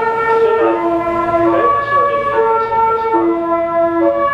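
Meitetsu limited express train's music horn playing its melody: a string of held, horn-like notes stepping up and down in pitch.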